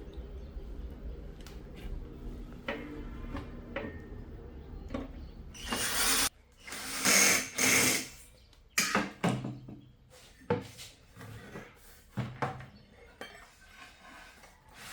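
A small electric power tool, such as a drill, runs steadily and stops about six seconds in. It is followed by a few short, loud hissing bursts and scattered knocks.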